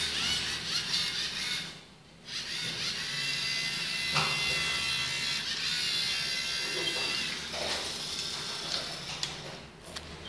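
LEGO Mindstorms EV3 robot's two drive motors whining as it follows the line, the pitch rising and falling as the motors speed up and slow. The whine stops briefly about two seconds in, a knock sounds about four seconds in, and the whine steadies and fades near the end.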